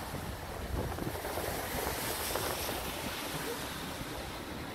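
Hunslet 2-6-2T narrow-gauge steam tank locomotive moving slowly at close range: a steady rushing hiss, stronger about two seconds in, with a few faint knocks.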